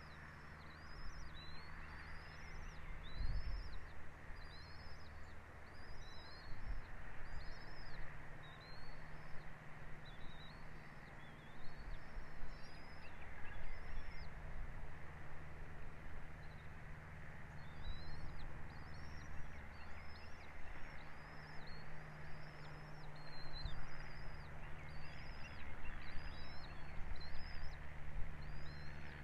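A bird calling in a long series of short, high, arched chirps, about two a second with a few brief pauses, over a steady low hum and background noise.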